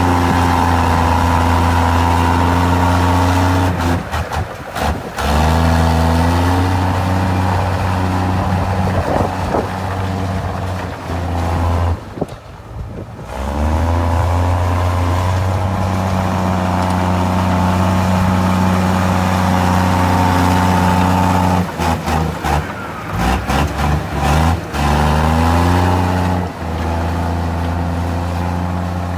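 Komatsu D53E crawler bulldozer's diesel engine running hard while pushing rock and soil, its revs stepping up and down several times. The sound briefly cuts out a few times, once for about a second near the middle.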